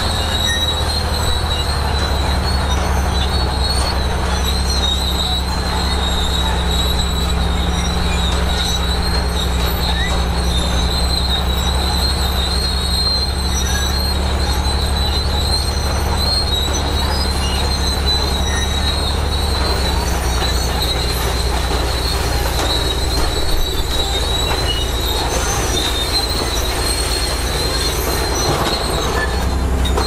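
Large crawler bulldozer's diesel engine running steadily under load, with a steady high-pitched squeal over it; the engine note shifts slightly about two-thirds of the way through.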